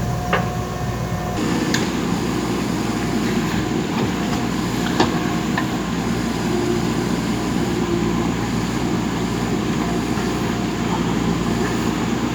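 JCB backhoe loader's diesel engine running steadily while digging, with a few sharp knocks from the work, the loudest about five seconds in.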